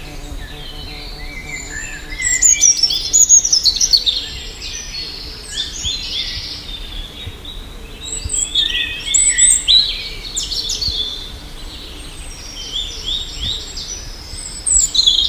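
Several birds chirping and calling together in short, high, quick notes that overlap. The calls come loudest in bursts about two seconds in, around nine seconds in, and near the end.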